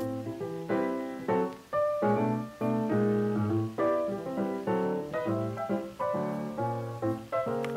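Background music: a piano playing a light tune, each note struck and fading, in a steady rhythm.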